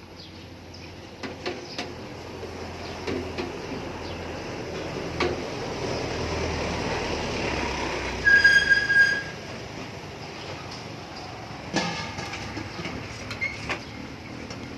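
A vehicle passing, growing louder for several seconds and then fading, with a short, loud, high-pitched horn-like tone at its peak. Light clicks and clatter come and go.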